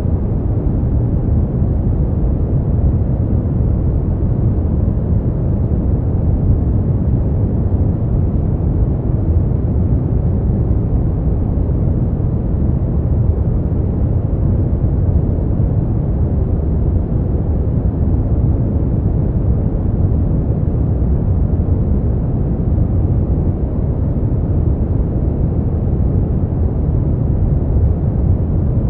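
Continuous noise played for sleep, a steady deep rush that never changes, its weight low and dull with little treble.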